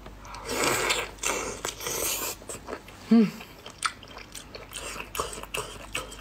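Close-up eating sounds of a raw marinated giant prawn: biting and chewing, with crackling and clicking as the shell is peeled apart by hand. A short hum of the voice about three seconds in is the loudest sound.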